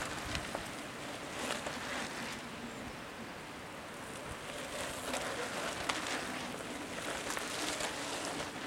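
Mountain bikes rolling past on a sandy forest trail: a steady hiss of tyres on dirt that swells several times as riders go by.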